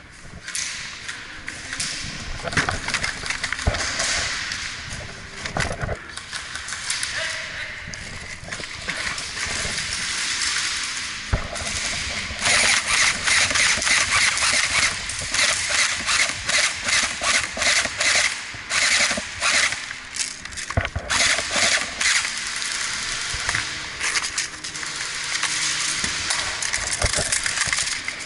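Airsoft guns firing, a rapid clatter of sharp clicks in bursts over rustling and hiss, heaviest through the middle of the stretch and again near the end.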